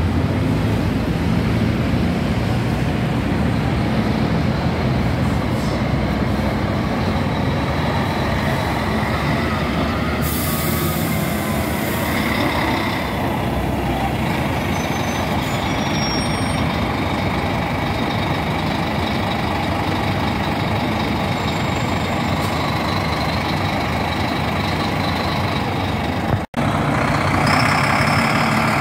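Diesel intercity coach engine running as the coach drives slowly past close by, with a short hiss of air from its air brakes about a third of the way in. Near the end a second coach's engine is heard pulling away.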